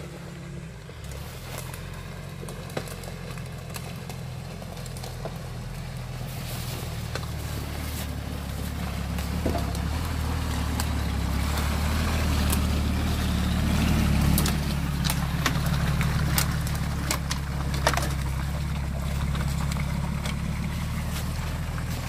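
Off-road SUV engine running steadily, growing louder toward the middle and easing off a little near the end, with scattered sharp clicks and snaps over it.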